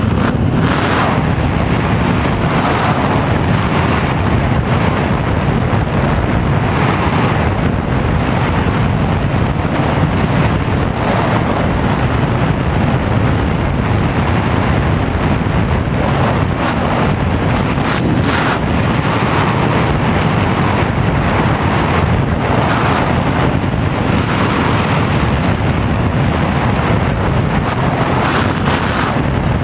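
Steady rush of airflow over the onboard camera's microphone on a Sky Surfer 2000 mm RC glider gliding with its motor off, the noise swelling and easing every few seconds.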